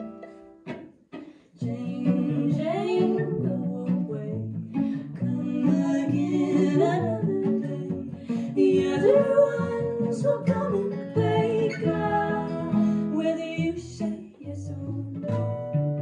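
Live acoustic string-band music from fiddle, cello and acoustic guitar playing together, with a sliding melody line on top. The music comes in again after a brief pause about a second and a half in.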